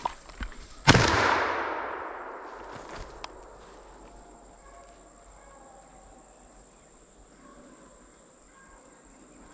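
A single shotgun blast about a second in, loud and sharp, its report echoing and dying away through the woods over about two seconds.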